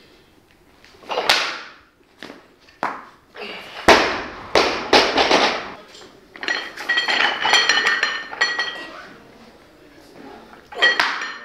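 Loaded barbell with bumper plates dropped onto the lifting platform about four seconds in, a heavy thud followed by rattling. Later the plates and collars clink and ring on the bar as another lift is pulled from the floor.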